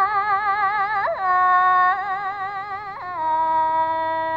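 A cải lương singer draws out a sung vowel with a wide, even vibrato. The pitch steps up about a second in and drops again about three seconds in, before the note stops.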